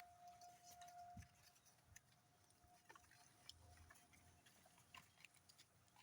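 Faint, irregular crisp clicks of sheep grazing, grass being torn and chewed. A faint steady tone fades after about the first second.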